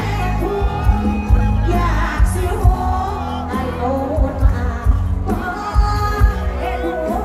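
Live band music with a woman singing through a headset microphone over the PA, backed by a steady drum beat and bass.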